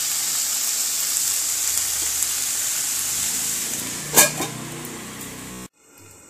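Chopped onions and tomatoes sizzling in oil in a nonstick pan as a spatula stirs them. About four seconds in, a stainless steel lid is set on the pan with a single ringing clank, and the sizzle goes quieter and muffled under the lid before the sound cuts off near the end.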